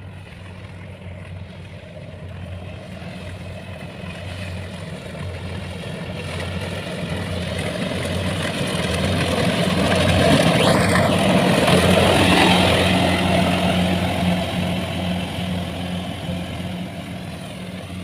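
Kubota rice combine harvester working through a paddy field: a steady engine hum under a wash of mechanical noise from the cutting and threshing. It grows louder as the machine draws near, is loudest a little past halfway, then fades as it moves away.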